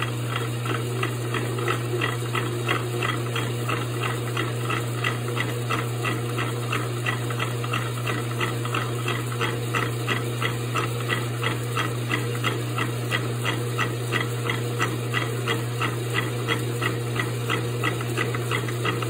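Metal lathe running with a hand-ground form tool cutting an undercut groove in the turning workpiece: a steady low hum with a regular tick about three times a second.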